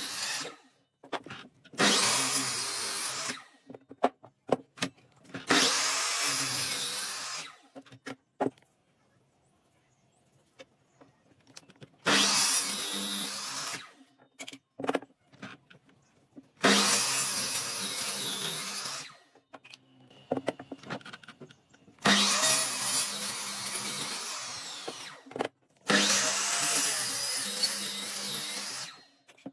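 A handheld electric power tool working wood in about seven short runs of one to three seconds each, with pauses between. Each run starts sharply, then holds a steady motor hum under a hiss.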